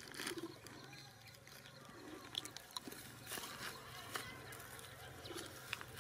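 Faint rustling and crinkling of dry grass and a plastic snack wrapper as cats and a baby monkey eat from it, with scattered sharp clicks and a few brief, soft animal sounds.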